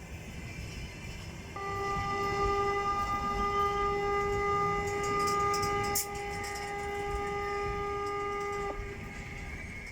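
EP20 electric locomotive's horn sounding one long steady blast of about seven seconds, over the low rumble of the arriving train.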